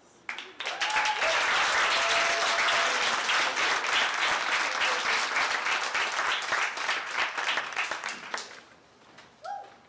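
Audience applauding: a burst of clapping that starts just after the opening, holds steady for about eight seconds and then dies away.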